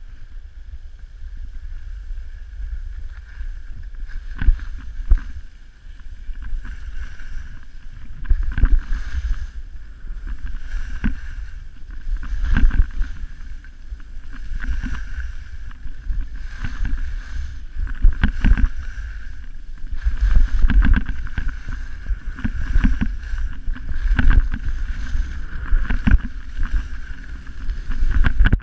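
Wind buffeting the action camera's microphone at skiing speed, with skis hissing and scraping over groomed snow through a series of turns; the loud scrapes and swells come every second or two.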